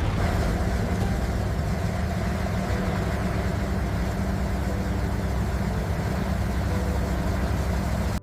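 Restored military aircraft's piston engine running steadily, a loud, even low drone.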